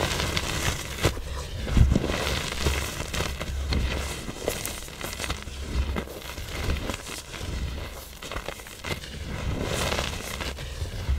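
Pressed blocks of black iron oxide powder being crushed, with irregular crunching and crackling as they break and crumble into powder, and a few low thuds.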